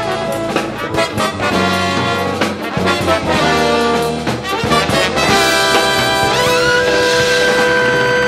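A band's brass section led by trumpets plays a quick run of short notes, then slides up into a long held chord about six seconds in.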